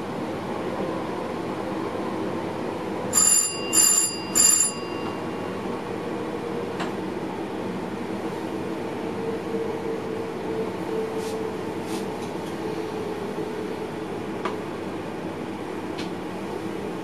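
Steady running noise inside a train driver's cab, broken about three seconds in by three short, loud electronic ringing tones a little over half a second apart, from a cab alert.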